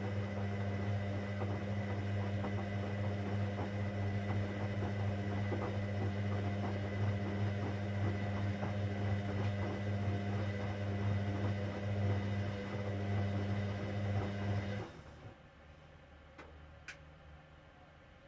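Hoover Dynamic Next washing machine running with a steady low hum and irregular light ticking, then cutting off abruptly about 15 seconds in, followed by a couple of faint clicks.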